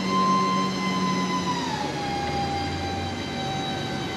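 Snorkel boom lift's hydraulic pump motor whining as the boom is powered, a steady high whine over a low hum that both drop to a lower pitch about two seconds in.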